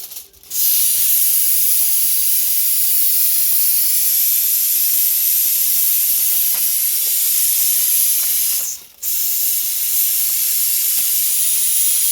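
Pressure cooker venting steam: a loud, steady, high hiss of pressure being let off, breaking off briefly twice.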